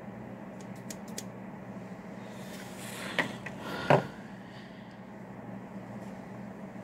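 Quiet room tone with a steady low hum, a few faint clicks about a second in, and two small knocks about three and four seconds in.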